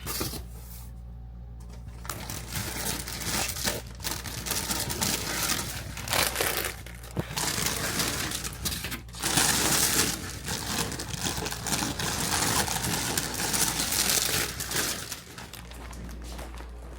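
Plastic packaging crinkling and rustling as it is handled, with irregular crackles, from about two seconds in until near the end.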